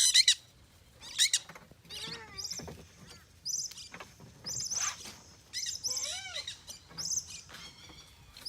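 Parrots chirping and squeaking: many short, high-pitched calls, some sliding up and down in pitch, in quick runs.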